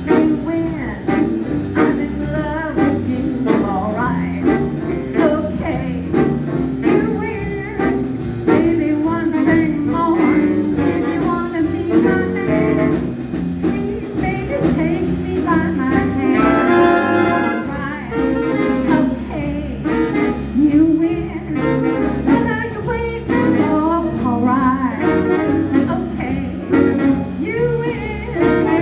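A swing band playing a medium-tempo number with a steady drum beat while a woman sings lead vocals.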